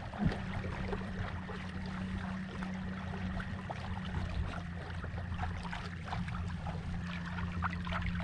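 Small motor driving a canoe, running with a steady low hum, while water splashes and rushes along the hull as it moves.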